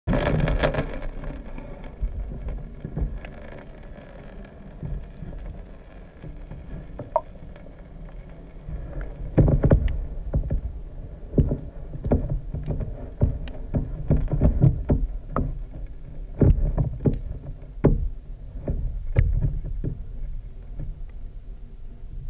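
Underwater sound heard through a GoPro Hero3's waterproof housing: a muffled low rumble of moving water with irregular knocks and clicks, busiest in the second half.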